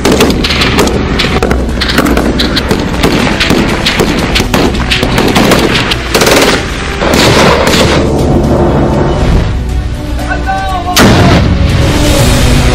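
Rapid gunfire from rifles and a belt-fed machine gun, with a loud blast from a pyrotechnic charge about eleven seconds in, all over background music.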